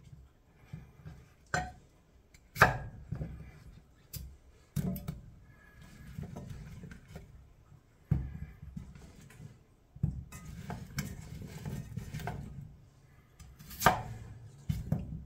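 Kitchen knife chopping potatoes on a cutting board: sharp knocks of the blade against the board at irregular intervals, the loudest a few seconds in and near the end.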